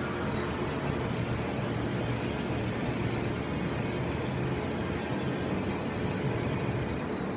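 Steady mechanical background noise with a low, unchanging hum.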